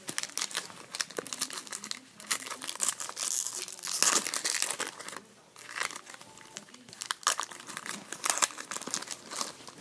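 Foil wrapper of a trading-card pack crinkling and tearing as the pack is opened, with irregular rustling crackles throughout.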